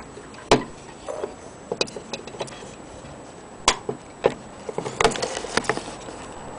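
Scattered sharp clicks and knocks at uneven intervals from handling an antique French clock movement and moving its hands by finger.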